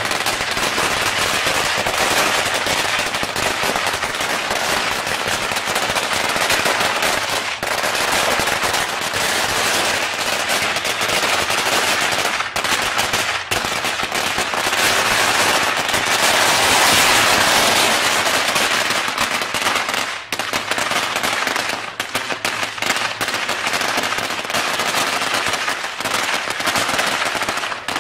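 A long string of firecrackers going off in a continuous, rapid crackle of sharp bangs, too fast to count, with brief dips and a denser stretch a little past the middle.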